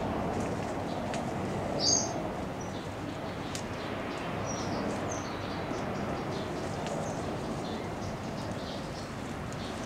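Birds chirping in a few short high calls, the loudest about two seconds in, over a steady outdoor background hiss.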